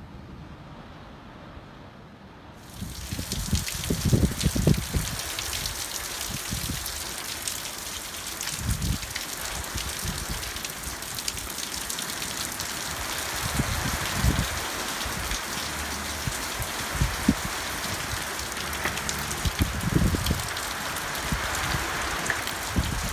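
Heavy rain falling on paving and puddles, a dense steady hiss that starts suddenly about three seconds in, after a muffled low rumble. Short low buffeting thumps on the microphone come every few seconds.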